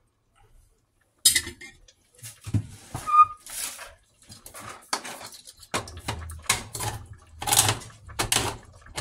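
A metal spoon knocks against a stainless steel stew pot and clinks down onto a spoon rest, with one short ringing clink. From about two-thirds of the way through, a regular run of clicking, scraping strokes about once a second over a low hum as a can of cream corn is handled.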